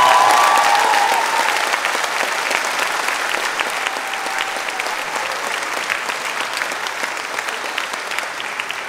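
Audience applause, a dense patter of many hands clapping, loud at first and slowly dying away.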